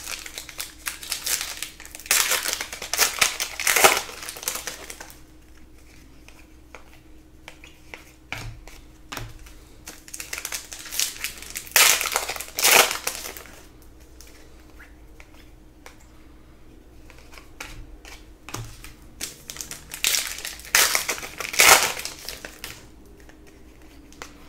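Trading-card pack wrappers being torn open and crumpled, a crinkling crackle that comes in three bursts several seconds apart, with light handling noise between.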